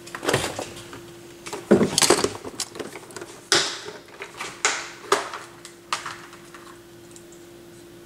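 Hand tools being handled and set down on a wooden workbench: a string of sharp clicks and clatters, the busiest about two seconds in, over a faint steady hum.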